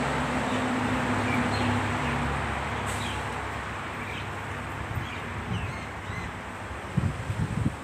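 Outdoor ambience: a low steady hum fading over the first few seconds under a constant background hiss, with faint bird chirps scattered through. Wind buffets the microphone in a few gusts near the end.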